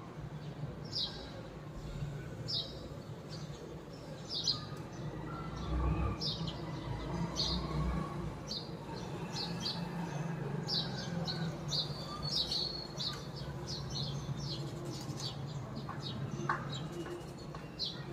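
A small bird chirping over and over, short high chirps about every second and a half, coming faster in the second half, over a steady low background hum.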